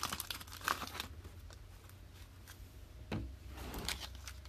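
Foil trading-card pack crinkling as the cards are slid out, with scattered light clicks, then a soft tap about three seconds in as the stack of cards is set down on the table.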